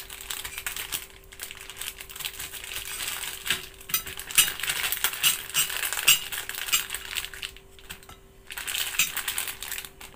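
Plastic instant-noodle packet crinkling and crackling as a hand rummages inside it to pull out the seasoning sachets, with a brief lull about three-quarters through.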